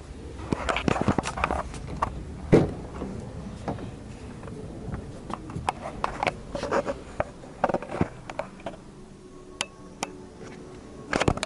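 A run of irregular clicks and knocks over a low steady background, the loudest knock about two and a half seconds in.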